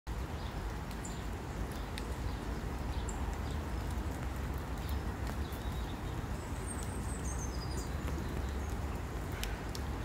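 Steady low outdoor rumble, over which small birds give a few faint, high chirps and twitters, with a short run of notes about two-thirds of the way through. A few sharp ticks sound now and then.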